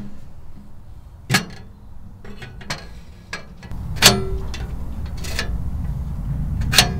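Metal clicks and clanks from parts of a Pomoly Baker Oven hot tent wood stove being worked by hand, about half a dozen knocks with the loudest about four seconds in, over a low steady rumble. The part being moved is stiff, and its hex bolt wants loosening.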